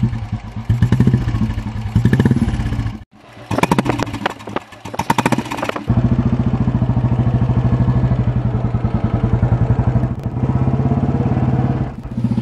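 Exhaust note of a 1959 Royal Enfield Bullet G2's single-cylinder four-stroke engine, a steady run of evenly spaced firing pulses. It rises and falls with a few revs at first, breaks off abruptly near three seconds and again near six, then runs on steadily as the bike is ridden.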